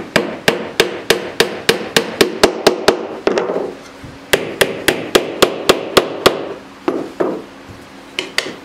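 Hammer blows on a small wooden workpiece: quick, even taps about three to four a second in two runs with a short pause between, then a few last scattered taps near the end.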